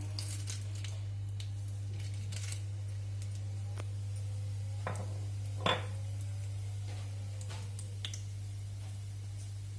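Whole spices (fennel seeds, bay leaves, cinnamon stick, cloves) dropped from a small ceramic dish into a metal kadai: light scattered ticks and a few sharp clinks, the loudest a little past halfway, over a steady low hum.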